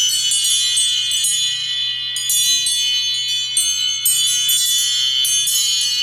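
iPhone 12 mini ringtone playing: a bright chiming melody of quick, high bell-like notes over a steady ringing tone.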